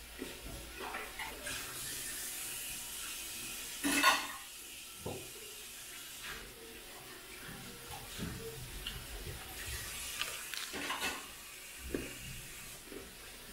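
Raw broccoli being bitten and chewed close to the microphone: irregular crunching, with a louder crunch about four seconds in and another near eleven seconds.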